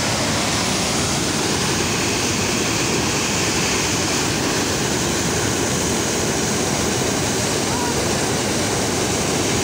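Water pouring over a concrete weir into a churning pool below, a steady rush of white water.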